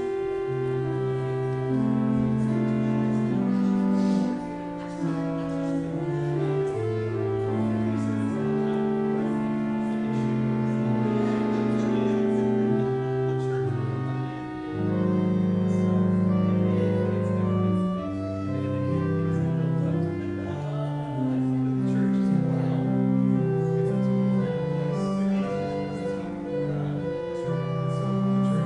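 Slow instrumental prelude music on a church keyboard, with long held chords over a moving bass line.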